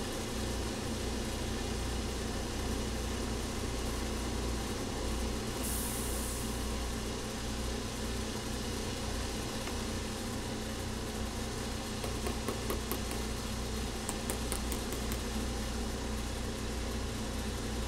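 A machine running steadily with a low electric hum, with a few faint light ticks about two-thirds of the way through.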